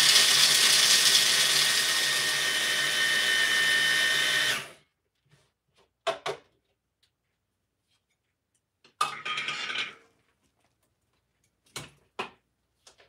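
Motor of an electric kitchen appliance running loud and steady as it grinds almonds fine, then cutting off about four and a half seconds in. A few short, quieter knocks follow.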